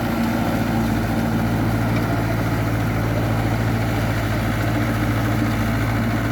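Tractor engine running at a steady speed, a constant low hum.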